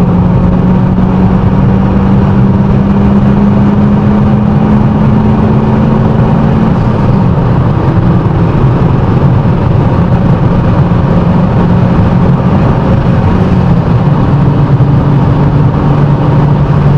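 2011 MG6 1.8 turbo petrol four-cylinder engine with a straight-through exhaust, under way, heard from inside the cabin over steady road noise. Its note rises slowly for about seven seconds, then drops a step and holds steady, and drops again about two-thirds of the way through.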